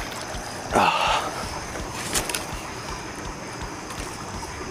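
A short excited shout about a second in, then a single sharp click, over steady outdoor noise.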